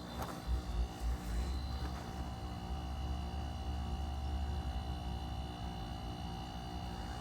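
A Goodman GSZB4 1.5-ton heat pump running in its defrost cycle: a steady hum with several held whining tones. There are a few low rumbles in the first second or so.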